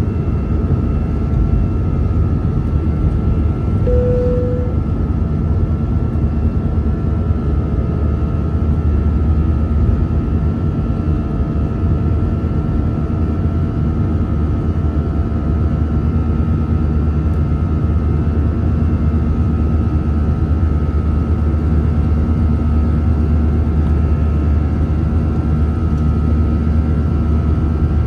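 Airbus A319's CFM56 jet engines running steadily, heard as a deep, even rumble with a steady whine over it, from inside the cabin. A short single-pitched tone sounds once, about four seconds in.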